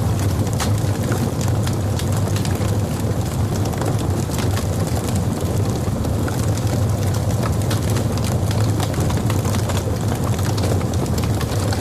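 Logs burning in a fireplace: many small irregular crackles and pops over a steady low rumble of the fire.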